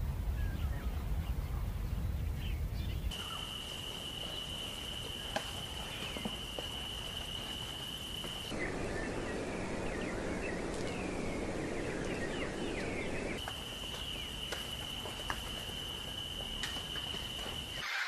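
Laid-in nature ambience that changes abruptly several times, with scattered small bird chirps throughout. A low rumble fills the first few seconds. A steady high-pitched insect buzz runs from about three seconds in and again from about thirteen seconds in, with a stretch of denser rushing noise between them.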